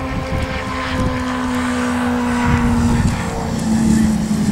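Radio-controlled P-47 Thunderbolt model plane's motor and propeller droning in flight during a low pass, a steady hum that dips slightly in pitch about three seconds in and grows louder toward the end as it comes closer.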